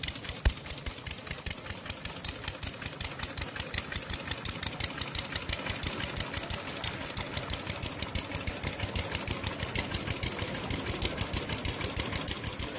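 Scale-model Nash gas engine running with a fast, even beat of firing strokes.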